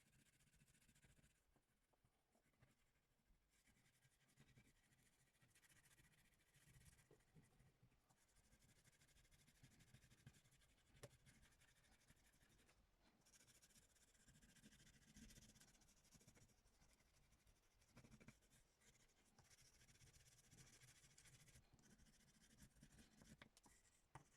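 Faint scribbling on paper: irregular scratchy strokes of a drawing medium being worked across a journal page, with a few small clicks.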